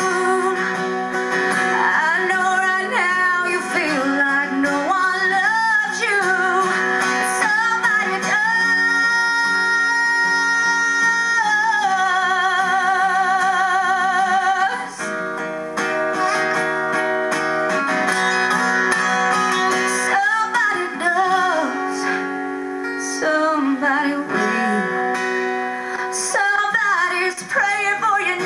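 A woman sings a slow country ballad, accompanied by two acoustic guitars. About ten seconds in she holds one long note, steady at first and then with a wide vibrato.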